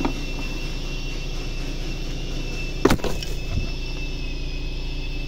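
Plastic pillar trim cover of a Toyota Fortuner being pulled off by hand: a small click at the start, then a sharp clack of its retaining clips letting go about three seconds in, over a steady background hum.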